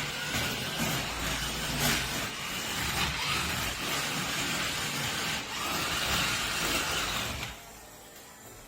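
Remote control monster truck driving, its electric motor whining up and down in pitch over the rattle of gears and tyres; it stops abruptly about seven and a half seconds in.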